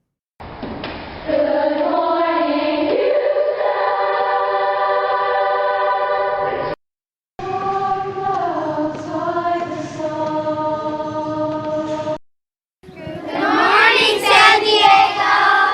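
A choir singing long held chords in two phrases, each cutting off into a short silence, then a shorter, busier stretch of voices near the end.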